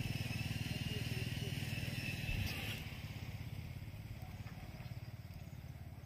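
A motorcycle engine running with a rapid, even putter, growing gradually fainter after about three seconds.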